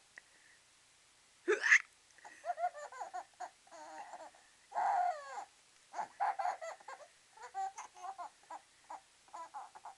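A sharp hiccup about a second and a half in, then a six-month-old baby laughing in short, repeated giggles.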